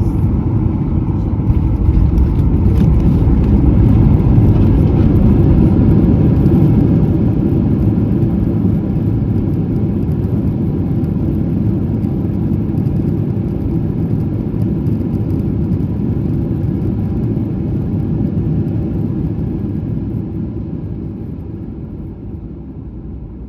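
Boeing 737-900 rolling out on the runway after landing: a loud low rumble of engines and wheels that swells over the first few seconds, then fades steadily as the jet slows.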